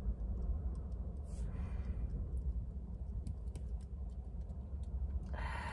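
Room tone: a low steady hum with a few faint clicks, a soft breath out about a second and a half in, and a breath in near the end.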